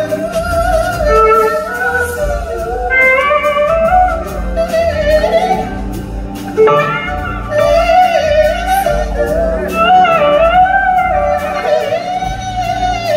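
Live rock band playing, with an electric slide guitar carrying a lead line that glides and wavers in pitch over bass and drums.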